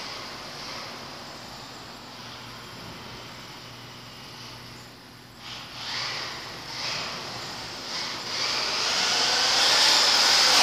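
Small electric RC car running on a concrete floor in an echoing parking garage, with short bursts of throttle from about halfway. Over the last couple of seconds a louder rushing sound swells as a full-size car drives through the garage.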